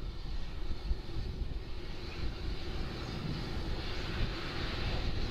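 Low rumble of a train running on the line, with a hiss that grows louder near the end.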